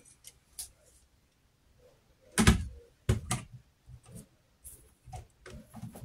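Handling noises from a model diesel locomotive being turned over in the hands and set onto the layout track: scattered clicks and knocks, the loudest a single thump about two and a half seconds in.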